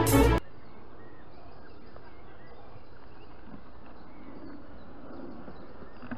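Violin intro music cuts off abruptly within the first half second, giving way to a steady faint outdoor background hiss with faint birdsong.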